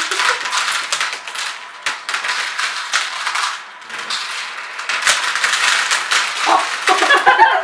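Skittles candies dropped onto spinning fidget spinners in a plastic tray, making many quick, irregular clicks and rattles as the candies strike the spinners and the tray.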